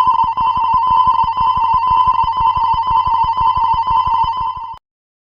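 Electronic level-crossing warning alarm ringing very fast, like a telephone bell, with a warbling tone; it cuts off suddenly near the end.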